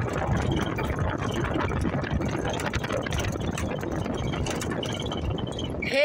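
Vehicle engine running steadily, with the body rattling as it rolls over a dirt track, heard from inside the vehicle.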